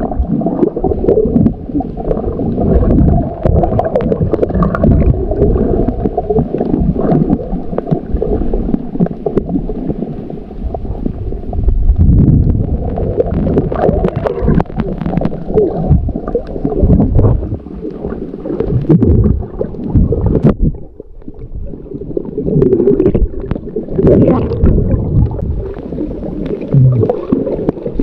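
Muffled, churning water sound picked up by a camera held under water: gurgling bubbles and water rushing past the housing, with a brief lull about two-thirds of the way in.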